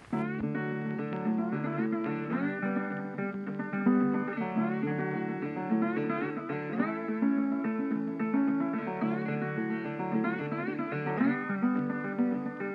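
Background music: an instrumental led by plucked acoustic guitar.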